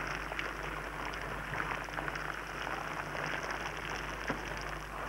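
Steady rain falling and pattering, a dense hiss of scattered drops, over a low steady hum.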